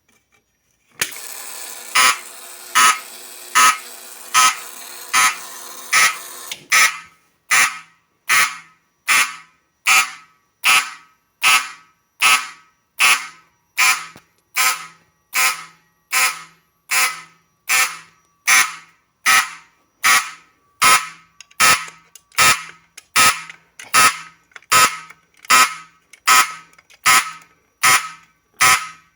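Fire alarm sounding in march time from a 1975 Standard Electric Time SET 7000 fire alarm panel: sharp, evenly spaced pulses, a little more than one a second. It starts about a second in. A steady background sound runs under the first pulses and stops about seven seconds in.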